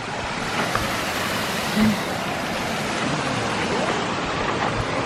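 Steady rushing and splashing of water from a small waterfall on a creek.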